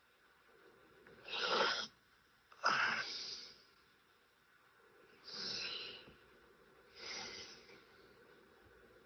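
A sleeping person snoring: four noisy, wheezy breaths spaced a second or two apart, the first two the loudest.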